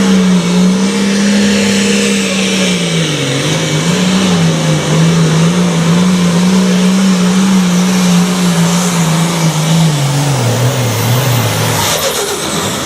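Super Farm class pulling tractor's diesel engine at full throttle during a pull. Its pitch wavers and then sinks lower over the last two seconds or so, as the engine is pulled down under the load.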